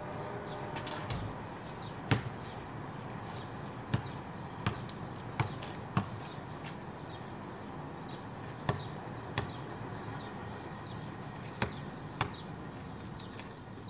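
A basketball bouncing on a driveway as it is dribbled: about nine separate sharp thuds, irregularly spaced and often in pairs, over steady outdoor background noise.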